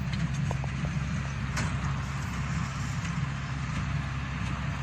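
Tractor engine running steadily under load while pulling a hay baler, with a faint click about one and a half seconds in.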